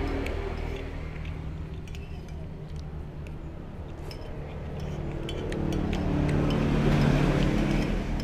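A motor vehicle's engine running, getting louder in the second half, with a metal spoon clinking and scraping against a ceramic plate.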